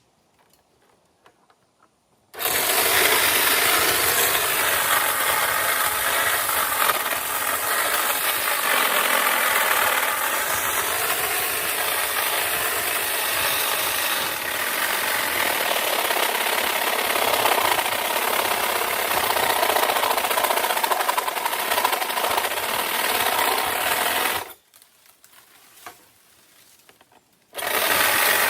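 Small motorised saw running steadily at a high, even pitch. It starts abruptly about two seconds in, cuts off suddenly about four seconds before the end, and starts up again just before the end.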